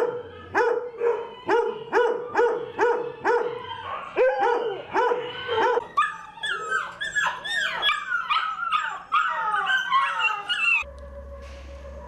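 Dogs in shelter kennel runs barking: one dog barks steadily about twice a second, then from about six seconds in several dogs bark and yelp over one another at a higher pitch. The barking cuts off suddenly near the end.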